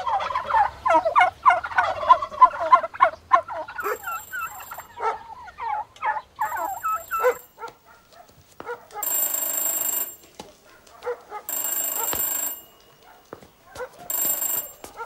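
A crowded flock of white broiler chickens clucking and squawking. A telephone bell then rings: faintly twice, then louder three times, each ring about a second long and a couple of seconds apart.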